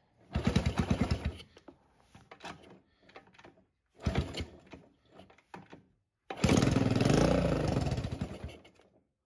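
Honda SL100 single-cylinder four-stroke engine being kick-started through an open exhaust. It catches and runs for about a second and dies, fires briefly again, then runs for about two seconds before dying out.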